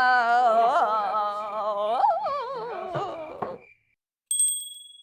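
A drawn-out sung voice wavering with heavy vibrato and sliding down in pitch, breaking off a little before four seconds in. A bright, high chime dings once soon after and rings away.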